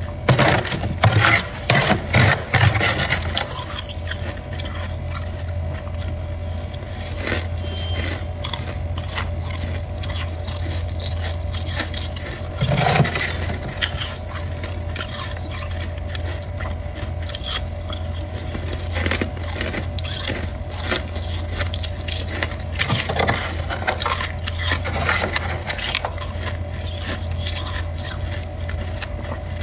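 A spoon scraping soft frost off the inside of a freezer compartment, in bursts of gritty scraping. The strokes are loudest in the first three seconds, come again about halfway through and several more times in the last third, over a steady low hum.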